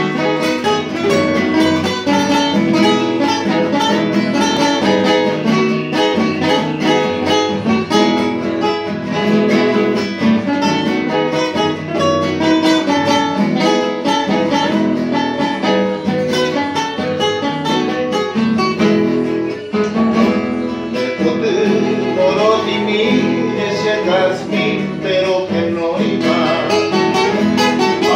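Two acoustic guitars playing together, plucked and strummed chords and melody in an instrumental introduction to a song.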